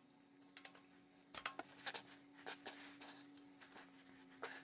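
Faint, scattered clicks and small knocks of a steel cap-type oil filter wrench and its extension straining against the tight plastic oil filter housing of a 2018 Toyota RAV4, over a faint steady hum.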